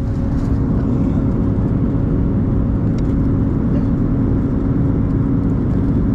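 Airbus A330-200 cabin noise in cruise: a steady low rush of airflow and engines with a constant hum. A faint tick sounds about three seconds in.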